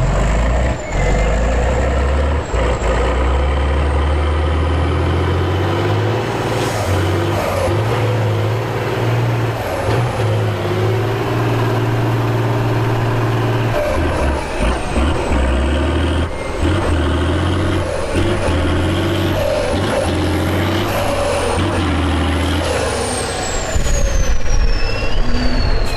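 Heavy truck engine running hard at high revs, with a faint high whine wavering above it and falling away near the end.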